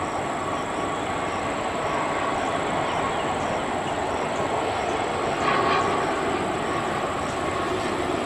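Airbus A320-200 jet engines on final approach, a steady roar with a thin whine running through it, swelling briefly louder about five and a half seconds in.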